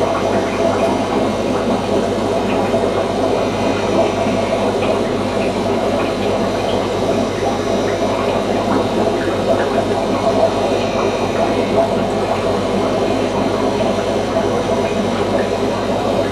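Steady electrical hum with a constant watery rush, typical of running aquarium equipment such as an air pump and filter.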